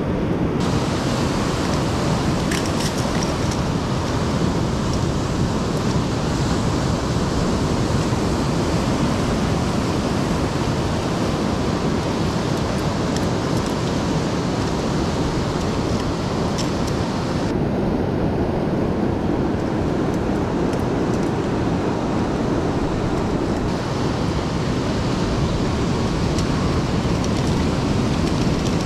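Steady wash of sea waves and surf, with wind buffeting the microphone. A few faint clicks.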